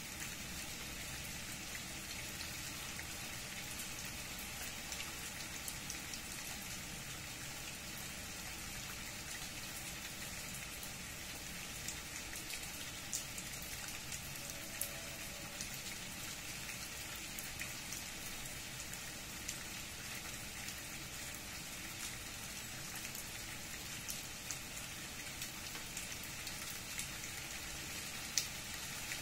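Steady rain, with scattered sharper drop ticks throughout.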